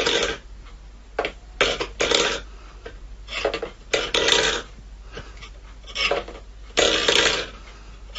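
Pit bull snoring in its sleep: a series of rough breaths, one every second or two.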